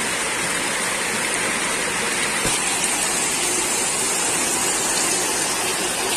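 Fast-flowing floodwater rushing and churning through a street in a steady torrent, with heavy rain falling.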